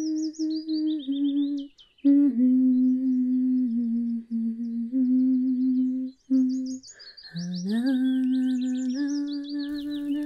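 A woman's voice humming a slow tune in long held notes, with short breaks, while birds chirp above it near the start and again in the second half.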